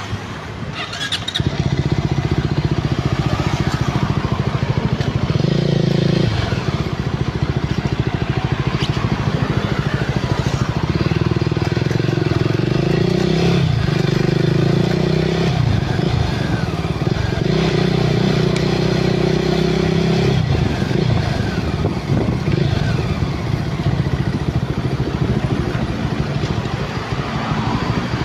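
Motorcycle running while being ridden. It gets louder about a second in as it pulls away, and its engine note holds steady for a few seconds at a time, several times over.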